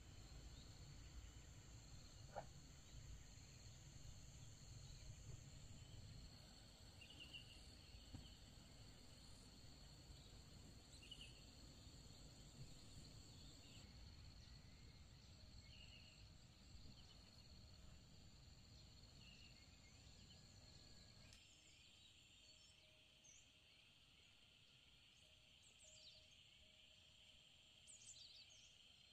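Near silence: faint countryside ambience of steady insect buzzing with scattered short bird chirps. A low rumble runs under the first two thirds and then drops away.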